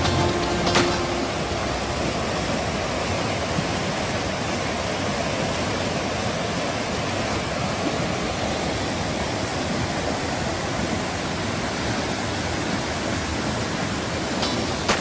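Steady rush of a valley stream's water flowing over rocks.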